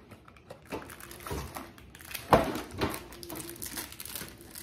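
Kitchen items being handled: a few short knocks and clatters, the loudest a single sharp knock a little past halfway.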